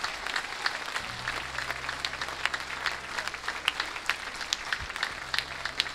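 A large standing audience applauding, many hands clapping at once, with a low steady hum underneath from about a second in.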